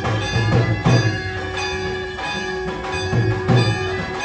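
Bells ringing steadily over drum beats, about two beats a second, in a music-like rhythm.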